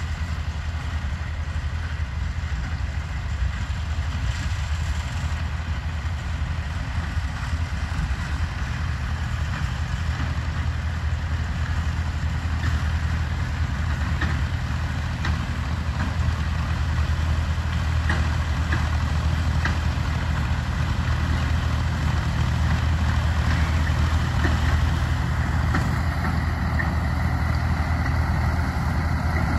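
Ford 4110 tractor's three-cylinder engine running steadily under load as it pulls a mower-conditioner through standing hay, a constant low drone.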